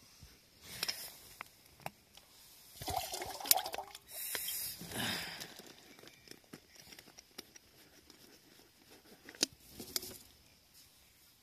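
Camp cooking gear being handled in a small tent: scattered light clicks and clinks, with a louder noisy rustling stretch about three to five seconds in and a few more clicks near the end.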